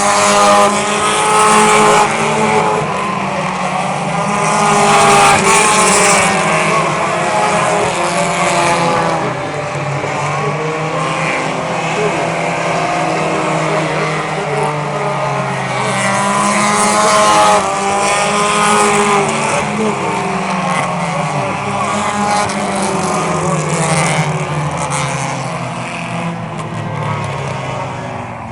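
Several small race cars' engines running hard around a short oval track. Their pitch rises and falls again and again as the cars accelerate, lift and pass by.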